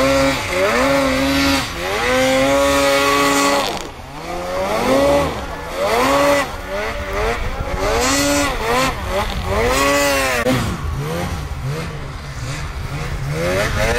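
Snowmobile engines revving up and easing off again and again, the pitch swinging up and down every second or two, with a held high note about two to four seconds in.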